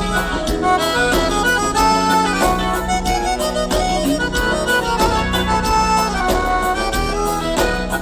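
Gaúcho dance band playing an instrumental passage, an accordion carrying the melody over bass and a steady beat.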